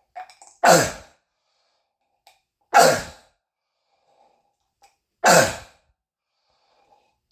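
Three loud, harsh, seal-like barking coughs of croup, about two and a half seconds apart, each short with a brief echo off the kitchen walls.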